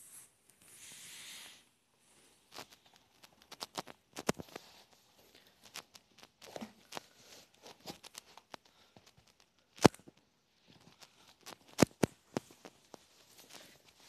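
Sneakers being handled and put on: shoe fabric and laces rustling and scraping as a foot is worked into a sneaker, with irregular clicks and knocks, a few sharp ones about four, ten and twelve seconds in. A short hissing noise comes at the start.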